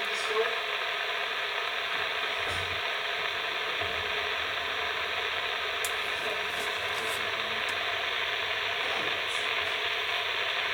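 Steady receiver static hissing from a Realistic TRC-57 SSB CB base station's speaker, with a few faint clicks.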